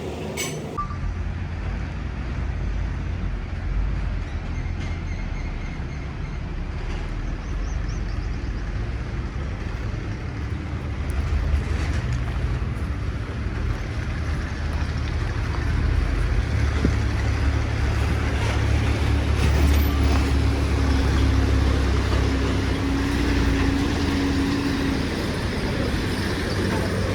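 A heavy machine's engine running with a low, steady rumble that grows louder about halfway through.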